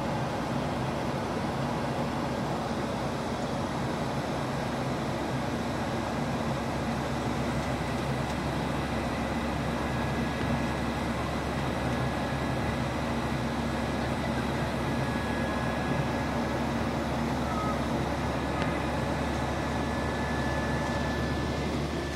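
Steady drone of a jet airliner in flight, heard from inside the cabin: turbofan engine hum under an even rush of air.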